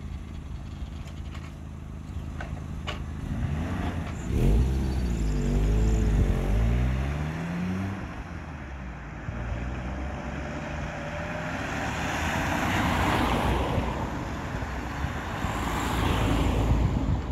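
Cars driving one after another over a railway level crossing just after the barriers lift, engines and tyres passing close by. The loudest pass-bys come about four seconds in and again near the end.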